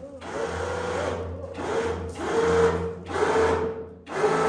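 Battery-powered electric winch motor running in short runs, starting and stopping about once a second, as it reels in synthetic line to hoist a heavy 54-inch spare tire. It gives a steady whine with a low hum under it.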